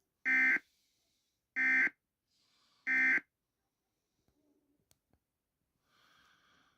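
Three short Emergency Alert System digital data bursts, each about a third of a second long and about a second apart. These are the SAME end-of-message code that closes an EAS alert broadcast.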